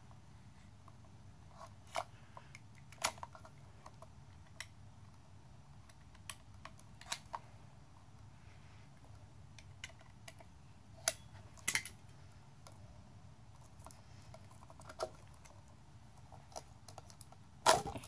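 Sheathed 14-3 electrical cable being pushed and worked into a plastic electrical box, giving irregular light clicks and knocks, about ten in all, the loudest near the end, over a faint low hum.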